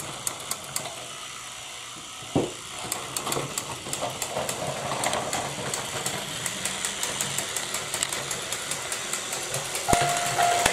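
Battery-powered Plarail toy trains running on plastic track: small motors whirring, with wheels clicking and rattling over the track joints, and a single thump about two seconds in. Near the end the toy level crossing sets off its warning signal, a tone repeating several times a second.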